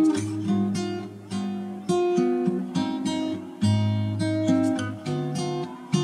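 Background music: acoustic guitar playing plucked chords, a new chord struck about once a second and left to ring out.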